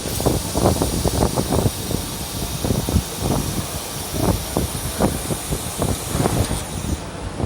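Handheld laser welder running a weld: a steady hiss of gas flow that starts right away and cuts off about seven seconds in, over an irregular low rumble.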